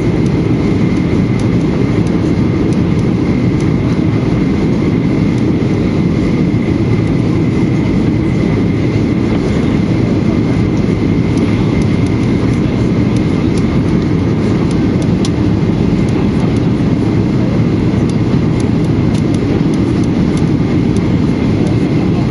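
Steady cabin noise inside a Boeing 737-800 on approach with its flaps extended: the loud rumble of its CFM56 engines and the air rushing over the fuselage, with a faint steady high whine above it.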